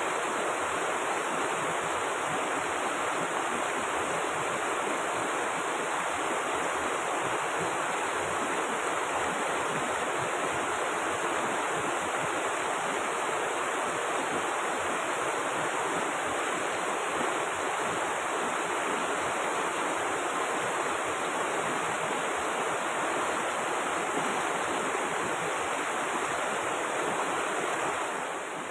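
A shallow mountain river rushing over rocks in white-water rapids: a steady, even rush of water.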